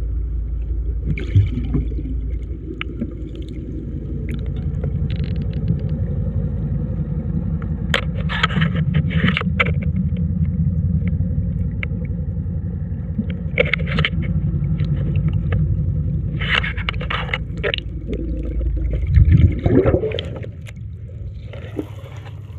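Fishing boat's engine heard underwater as a steady low drone, with several short scrapes and knocks over it and a brief louder swell near the end.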